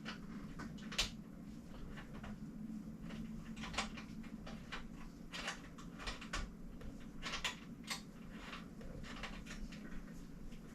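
Irregular small clicks, taps and rustles of hands working bicycle derailleur parts and tools, over a steady low hum.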